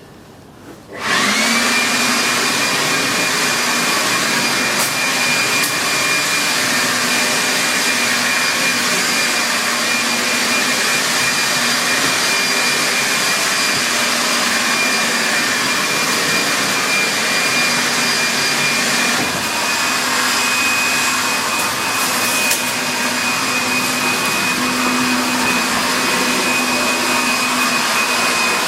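A small electric motor appliance switches on about a second in and runs steadily, a loud hiss of blowing or sucking air with a high whine over it.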